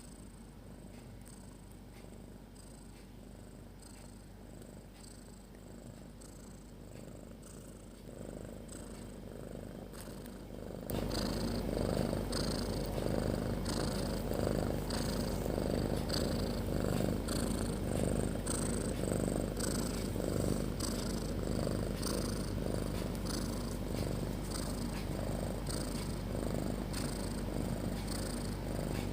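Sleeping cat snoring in a steady rhythm of breaths, a loud purr-like rasp that becomes suddenly louder about eleven seconds in.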